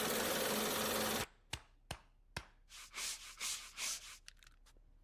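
Cartoon gadget sound effects: a steady hiss over a low hum that cuts off about a second in, then three sharp clicks and a few short, soft hisses.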